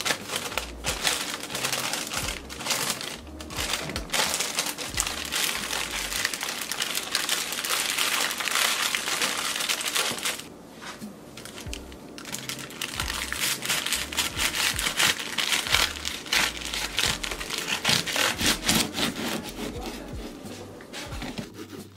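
Thin paper wrapping crinkling and rustling loudly as it is folded around a sandwich, easing off for a moment about halfway through. In the second half a knife saws through the paper-wrapped sandwich amid more crinkling.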